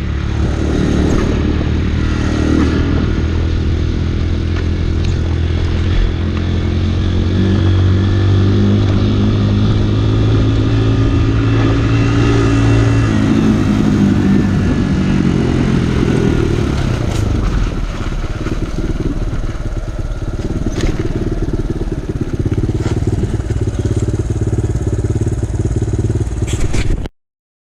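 Kawasaki KLX150 dirtbike's single-cylinder engine running while riding. Its pitch holds steady, shifts about halfway through, then settles lower, and the sound cuts off suddenly near the end.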